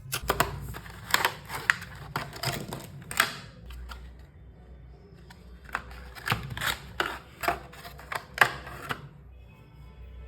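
Hands handling the cable and its packaging: two spells of sharp clicks and crinkly rustles, the first in the opening three seconds or so, the second from about six to nine seconds in.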